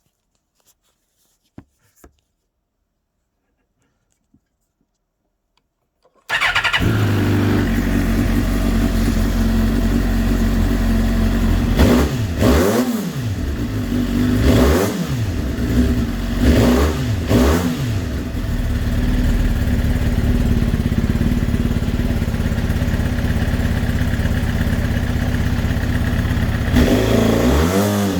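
Suzuki GSX-R1000 K8 inline-four engine: a few faint clicks, then the engine starts about six seconds in and runs at idle, with several short throttle blips that rise and fall in pitch, four in the middle and two more near the end. The owner hears a weird sound from it and does not know its cause.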